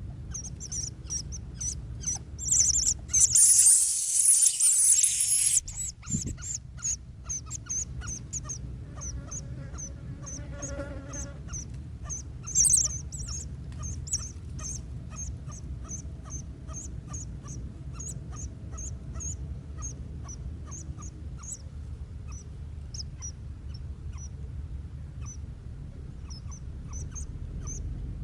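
Hoopoe nestlings giving a long run of short, high-pitched squeaky begging calls, two or three a second. A loud hissing rush comes about three seconds in and lasts a couple of seconds.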